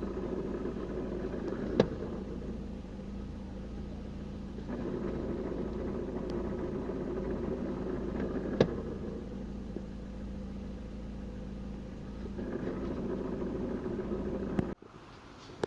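Lada engine idling with a knocking noise from the gearbox as the input shaft turns. The noise swells for a few seconds at a time and eases between, as it does when the clutch is let out and pressed in: pressing the clutch stops the noise. The cause is pitted gearbox bearings. The sound cuts off near the end.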